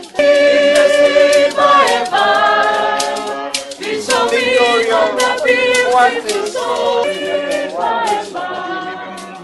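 Group of men and women singing together unaccompanied, with a sharp percussive beat running under the voices.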